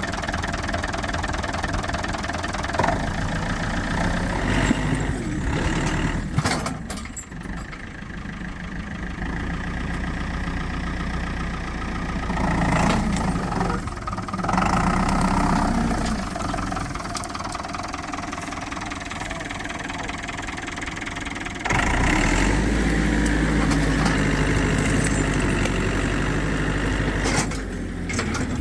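Diesel tractor engine of a 1981 Case David Brown 4x4 running steadily, its revs rising and falling a few times and stepping up sharply about 22 seconds in.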